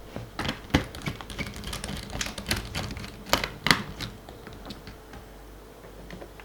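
Irregular plastic clicks and taps from handling a laptop, a busy run of them for about four seconds, then quieter.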